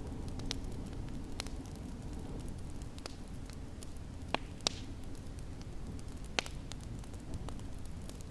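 Wood fire crackling in a fireplace: sharp pops scattered over a steady low rumble, with a few louder snaps about four and a half and six and a half seconds in.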